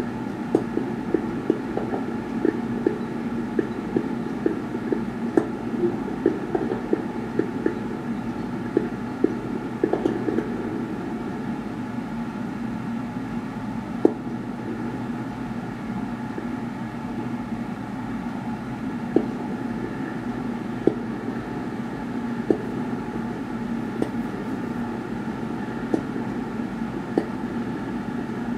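Fireworks display: a quick run of pops and thuds for the first ten seconds or so, then scattered single bangs, over a steady low rumble.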